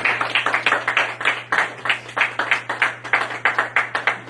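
Congregation clapping, many quick irregular claps, giving glory to God.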